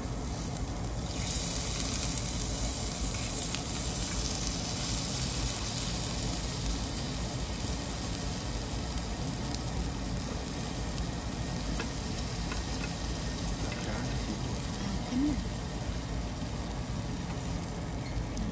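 Fish and other food sizzling on a barbecue grill, a steady hiss that grows louder about a second in.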